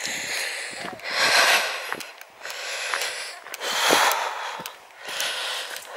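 A hiker breathing heavily while walking, slow, loud, airy breaths close to the microphone, with faint footsteps on a dirt track.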